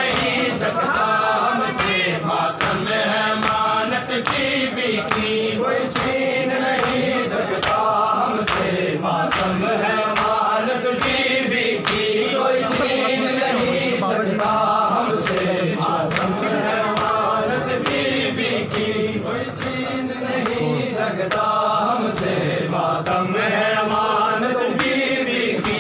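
A crowd of men chanting a noha (mourning lament) in unison, with a steady beat of hands striking chests (matam) keeping time.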